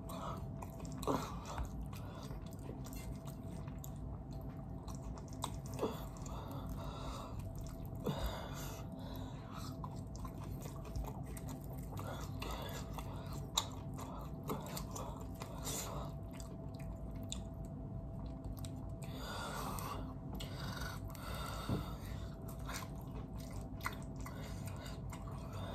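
Close-up chewing and mouth sounds of a person eating fried chicken, with scattered short clicks and smacks over a steady low hum.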